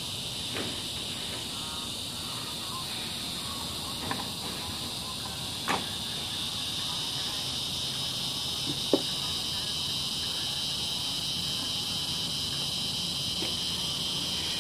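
Steady high-pitched insect chorus droning without a break, getting slightly louder about halfway through. A few short sharp clicks or taps sound over it, the sharpest about nine seconds in.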